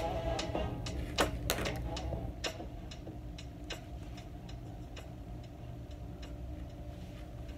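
Soft background music with an even ticking beat over a low held tone, growing quieter about three seconds in.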